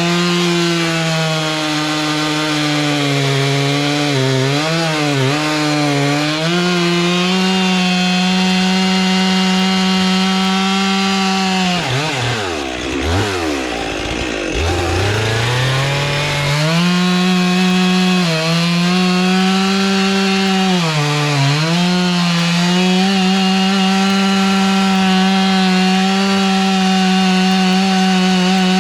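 Stihl two-stroke chainsaw cutting through logs at full throttle, the engine speed sagging briefly as the chain bites into the wood. About twelve seconds in it is let off to a low speed, then revved back up a few seconds later to carry on cutting.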